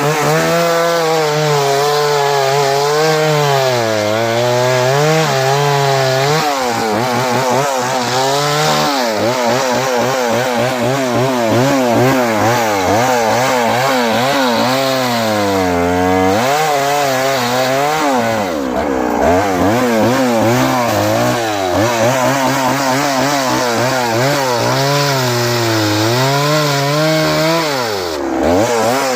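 Petrol chainsaw running at high revs while cutting through a big tree, its engine pitch wavering up and down as the chain bites into the wood. The pitch drops briefly a few times, around the middle and near the end.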